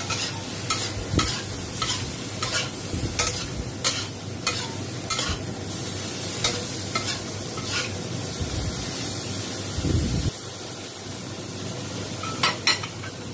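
Shrimp sizzling in a wok while being stir-fried, with sharp scraping knocks of the stirring utensil against the pan about twice a second for the first half, then more sparsely, and a pair of knocks near the end.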